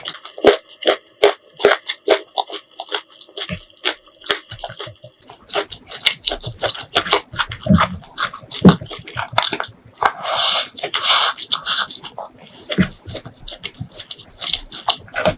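Close-miked eating of prawn curry: wet chewing and lip-smacking with rapid sharp clicks throughout, and a longer noisy slurp-like stretch about ten seconds in.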